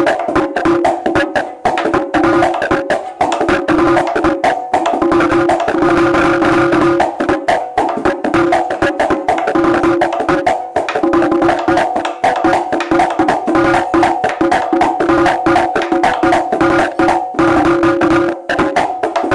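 Small Dominican tambora with newly mounted hide heads, played with a stick on one head and the hand on the other in a fast, steady rhythm. The heads ring with a clear pitch under each stroke, as the fresh skins are tried out.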